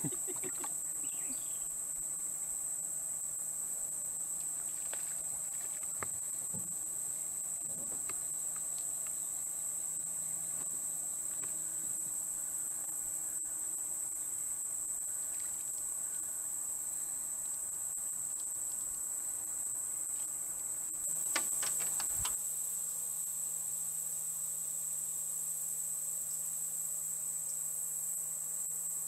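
Steady, high-pitched insect chorus: a constant shrill buzzing drone. A brief clatter of knocks comes about two-thirds of the way through.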